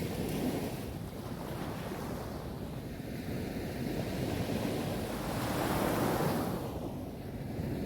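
Sea waves rolling in and washing up a beach. One wave breaks and rushes up the shore about five to six seconds in, the loudest moment, then draws back.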